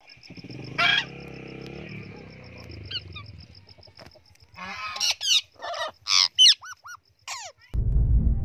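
Parrots squawking: one loud harsh call about a second in, then a run of short, sharp screeches and squawks in the second half. Near the end the calls stop and a low steady hum takes over.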